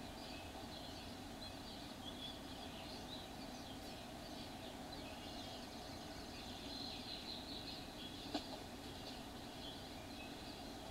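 Faint bird chirps and calls scattered over a steady background hiss, with a single sharp click about eight seconds in.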